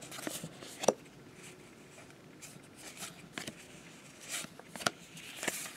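Baseball cards being flipped through by hand: soft sliding of card stock against card stock, with a handful of sharper flicks and snaps as individual cards are moved through the stack.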